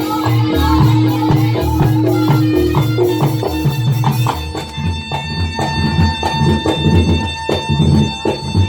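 Campursari band playing: steady drum beats under a melody, which gives way to long held notes about halfway through.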